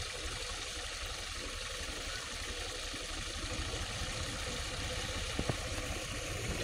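Farm tractor's diesel engine running steadily, turning a belt-driven water pump, with a rapid low pulsing from the engine.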